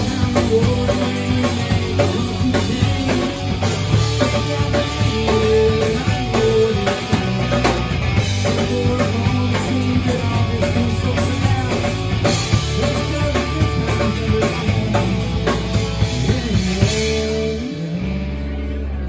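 Live rock band playing a song: drum kit, bass guitar, electric guitar and acoustic guitar together. The drum hits stop near the end, leaving the guitars ringing.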